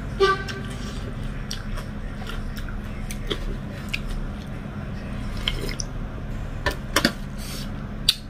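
Close-up eating sounds of chicken curry and dhido eaten by hand: wet squishing and mouth smacks, with a few sharp clicks near the end. A steady low hum runs underneath.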